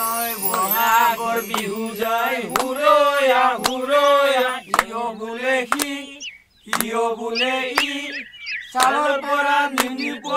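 Men singing a Bihu song, clapping their hands together about once a second to keep the beat. The song breaks off briefly near the middle.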